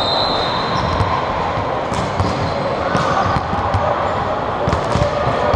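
Volleyballs being spiked and bouncing on a hardwood gym floor: irregular sharp smacks about once or twice a second, over the murmur of players and spectators in a large gym.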